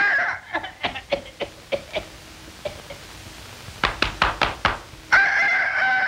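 Cartoon sound effects for a mechanical bird: two runs of sharp clacks, about four a second. About five seconds in comes a long, steady, bird-like call, which is the loudest thing.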